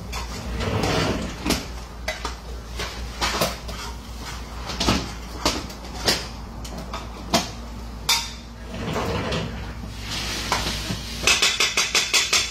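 Metal spoon scraping and knocking against a pot while stirring beef frying down for a curry, ending in a quick run of taps on the pot.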